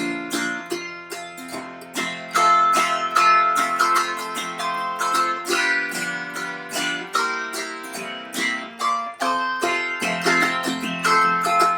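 Autoharp playing an instrumental break of a blues tune: a quick plucked melody over ringing chords, several notes a second.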